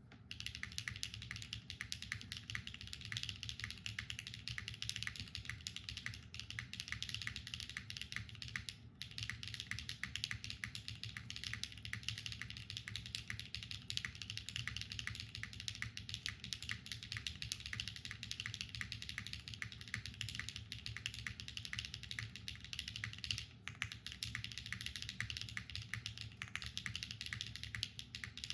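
Continuous rapid typing on a Neo65 Cu mechanical keyboard with Keygeek Purple Dawn linear switches, a carbon fiber plate in a gasket-mounted case, and JTK Night Sakura keycaps. It breaks off briefly about nine seconds in and again about 23 seconds in.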